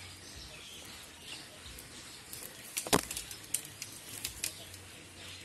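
Cast net being gathered up by hand, its lead sinkers clinking and knocking together in a few sharp clicks, the loudest about three seconds in and several smaller ones just after.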